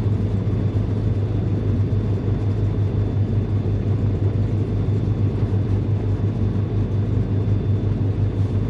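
Beechcraft G58 Baron's twin six-cylinder Continental IO-550 piston engines running at low taxi power: a steady low drone with a fast flutter.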